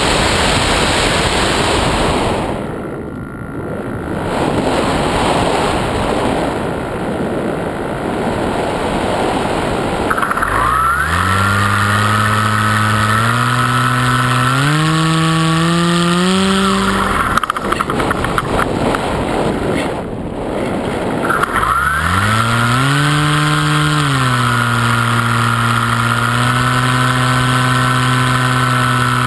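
Propeller motor of a model paraglider in flight, heard from the on-board camera. At first there is only a rush of wind on the microphone. About ten seconds in, the motor spins up and its pitch climbs in steps before cutting out. It starts again a few seconds later, holds a steady drone, and rises again near the end.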